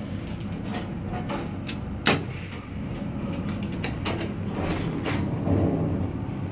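Elevator doors sliding closed over a steady low hum of the car's machinery, with several light clicks and a sharper clack about two seconds in. A low rumble swells near the end as the car starts to move.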